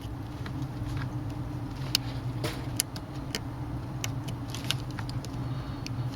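Scattered light clicks and taps of small parts being handled as a tablet's battery is fitted back into its case, over a steady low hum.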